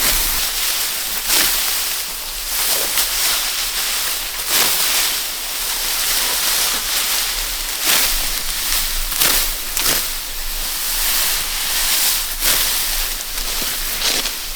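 Dry, ripe rice stalks rustling and swishing as they are reaped by hand, with a sharp cutting stroke every second or two.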